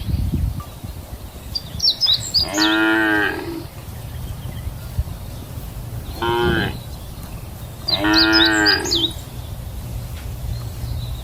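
Cows mooing: three moos, the first about two seconds in, a short one around the middle and a longer one soon after, over a steady low rumble.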